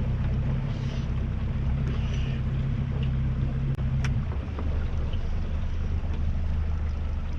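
Boat motor running steady under way, then dropping to a lower, slower note about four seconds in as the throttle is eased back, with a couple of light clicks just before.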